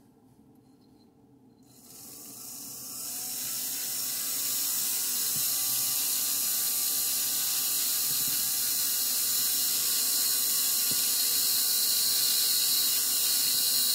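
Foot-pedal rotary carving handpiece with a 1.6 mm sintered dental bit spinning up about two seconds in, then running steadily with a high-pitched whine and hiss as the bit grinds wet fire agate.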